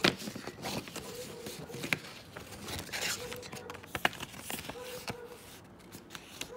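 Coin packaging of card and clear plastic being handled: sharp clicks and taps with rustling and scraping between them, the loudest click right at the start. A faint steady hum comes and goes underneath.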